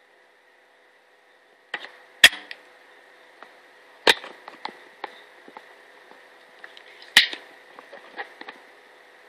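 Spring-loaded desoldering pump (solder sucker) working on circuit-board solder joints: sharp snaps as the plunger fires and is re-cocked, three loud ones about two and three seconds apart with smaller clicks between.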